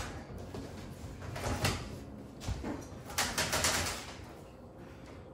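Dishwasher rack and its plastic roller-hinge parts being handled: a few short rattles and knocks, the busiest stretch a little past the middle.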